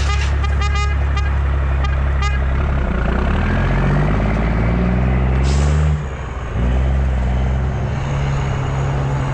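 CAT C13 diesel engine of a Kenworth W900B dump truck running. Its revs climb in steps with a rising turbo whistle from about three to six seconds in, then drop back to a steady run. A short burst of air hiss comes just before the revs drop, and a few runs of sharp clicks sound in the first two seconds.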